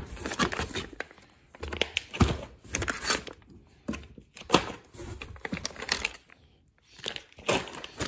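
Vacuum-sealed plastic packs of beef crinkling and rustling as hands shift them about in a cardboard box, in uneven bursts with short pauses.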